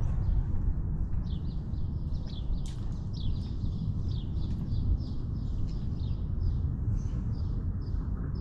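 Small bird calling in a rapid series of short, high, falling notes, about three a second, over a steady low rumble on the collar camera's microphone.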